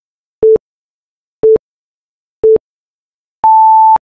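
Electronic countdown-timer beeps: three short low beeps about a second apart, then one longer, higher beep marking time up.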